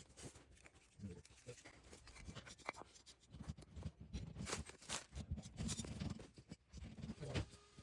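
Light handling noises: scattered clicks and taps, with a denser scraping and rubbing in the middle.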